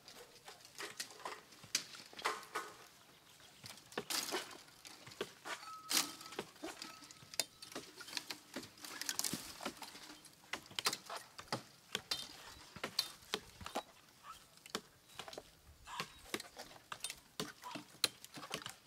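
Cork being cut and stripped from a cork oak with hatchets: irregular sharp taps and cracks, several a second and uneven in strength.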